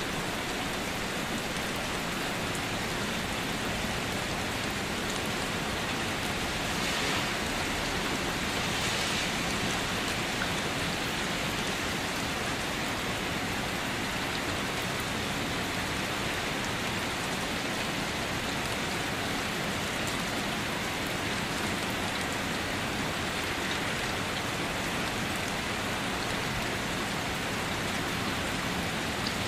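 Steady rain falling, an even hiss of many drops with no thunder.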